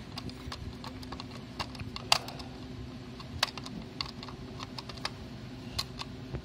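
Scattered small, irregular clicks and ticks of a Phillips screwdriver turning a screw into a printer's plastic printhead carriage, over a steady low hum.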